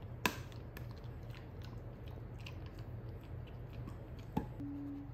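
A wolfdog chewing and crunching a hard stick-shaped dog treat, with many small clicks of teeth on the treat and two sharp cracks, one just after the start and one near the end.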